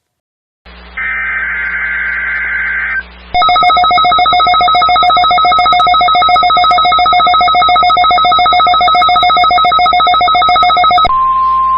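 Weather-radio alert: about two seconds of warbling digital alert-header data tones, then a loud, rapidly pulsing electronic alarm from a Bearcat weather radio for about eight seconds. Near the end this switches to the steady single-pitch NOAA Weather Radio warning-alarm tone, which marks the start of the weekly test.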